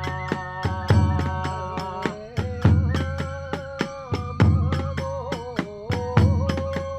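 Kagura hayashi music: a large drum strikes a heavy beat about every two seconds with lighter strokes between, while hand cymbals clash in a fast steady rhythm under a held, wavering melody line.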